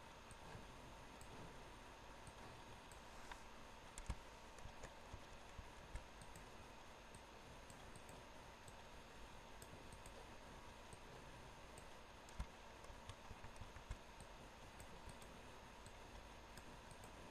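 Near silence: steady low hiss of the recording, broken by scattered faint computer mouse clicks, the sharpest about four seconds in and another about twelve seconds in.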